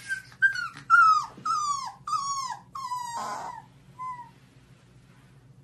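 Husky puppy whining: a quick run of about six high whines, each sliding down in pitch, then one shorter, softer whine a moment later.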